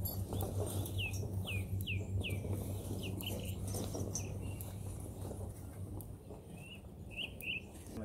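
Small birds chirping in short downward-sliding notes, in a few quick runs, over a steady low hum and the crunching of a horse grazing grass.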